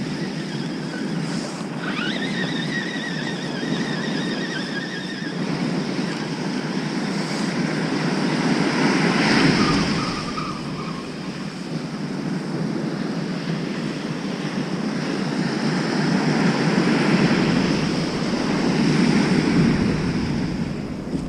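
Surf breaking and washing up a sandy beach, swelling louder as bigger waves come in about midway and again near the end, with wind buffeting the microphone. A thin high whine sounds for a few seconds near the start.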